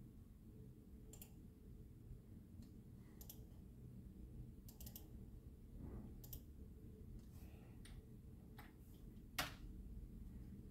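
Computer mouse clicking: about ten scattered clicks, a few in quick pairs, the loudest near the end, over a faint low hum.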